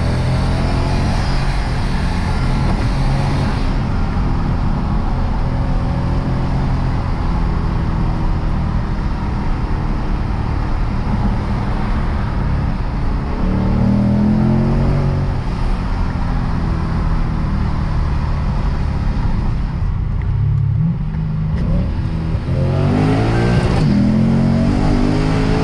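Lexus RC F's 5.0-litre V8 engine under way, steady and loud, pulling up in pitch under acceleration about halfway through and again near the end, with a brief let-off just before the second pull.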